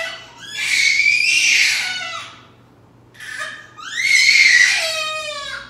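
Two long, high-pitched squealing cries from a human voice, separated by a short pause; the second starts about three seconds in.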